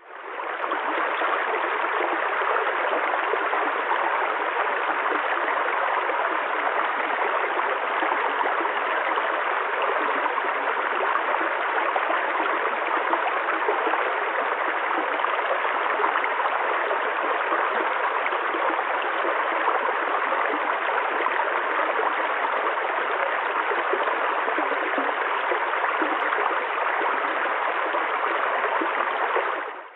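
Running water of a stream, a steady even rush that fades in at the start and fades out at the end.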